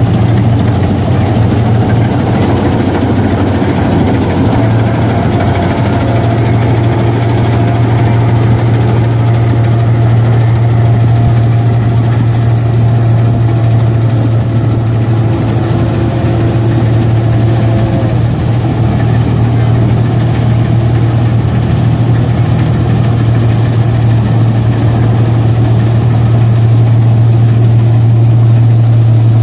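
Rice combine harvester's diesel engine running steadily while harvesting paddy, a constant deep hum with fainter steady machine tones above it.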